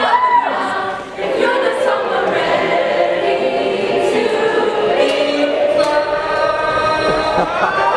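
Many voices singing together, choir-like, over music. Whoops and cheering start to rise near the end.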